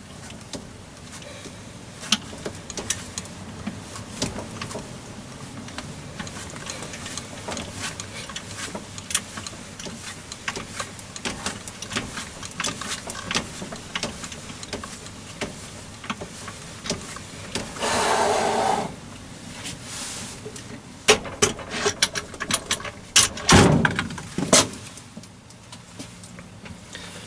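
Myford lathe running with a light steady hum while a drill in the tailstock chuck is fed into the work, with many small ticks and scrapes of cutting. About two-thirds of the way through comes a hiss lasting about a second, then a run of sharp metallic knocks and clanks as the tailstock is wound back and the machine is handled.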